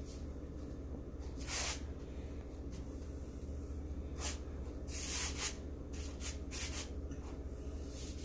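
A nitrile-gloved hand smoothing wet white base paint over a stretched canvas: soft rubbing swishes, a few of them louder, over a steady low hum.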